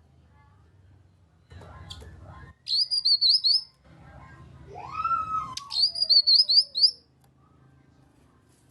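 Cucak kinoi song: two bursts of quick, high, sharp chirping notes, a few notes each, with a lower whistle that rises and then slides down between them.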